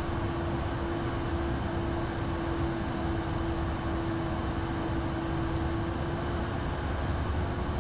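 Flight-deck noise of a Bombardier Challenger business jet in flight: a steady rush of air with a steady hum running through it.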